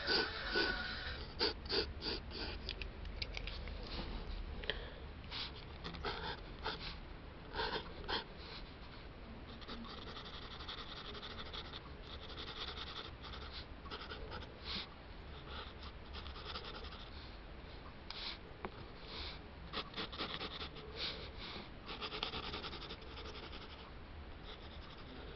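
A pencil scratching across drawing paper: quick, short strokes in the first several seconds, then longer, steadier strokes.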